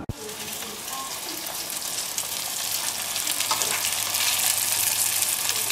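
Bistekaker (Norwegian meat patties) sizzling in a frying pan, the sizzle gradually getting louder.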